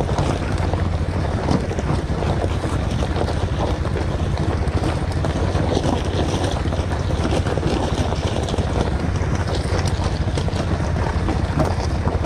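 Bajaj Pulsar NS200's single-cylinder engine running steadily under way, with tyres rolling over loose gravel and wind buffeting the microphone.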